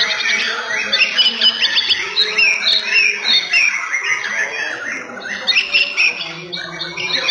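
Several white-rumped shamas (murai batu) singing at once: a dense, loud jumble of overlapping rapid whistles, trills and sharp calls.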